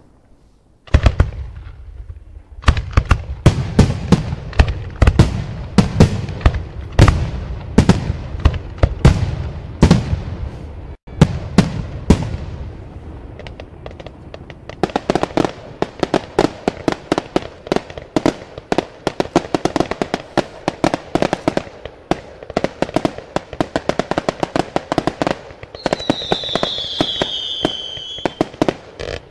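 Aerial fireworks display: after a second or so, a fast run of loud shell bursts with deep booms, about one or two a second, for roughly ten seconds. Then comes a dense, rapid popping and crackling of many smaller bursts. Near the end a falling whistle sounds over the popping.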